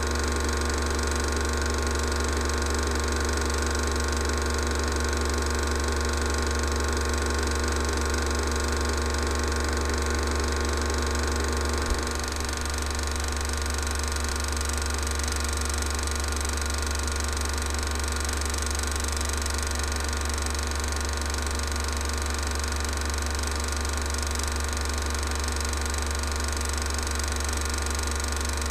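16mm cine projector running steadily, a continuous motor hum and mechanical whirr. There is a single click about twelve seconds in, after which it runs slightly quieter.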